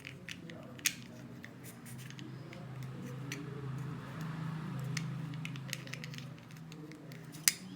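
Small plastic Lego pieces clicking and snapping as they are pressed onto a plate, a scattered run of light clicks with a sharper snap about a second in and another near the end.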